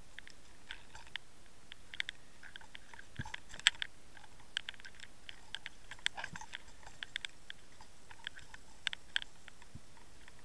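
Underwater recording from a towed Water Wolf camera: a steady hiss of water noise with irregular, scattered sharp clicks and ticks, the loudest one about three and a half seconds in.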